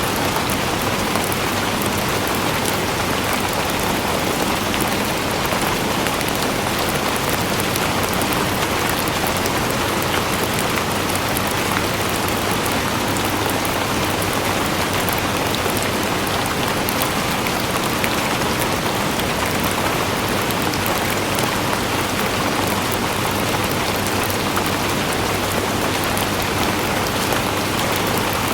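Steady rain falling and pattering on a surface, a constant dense hiss full of fine drop ticks.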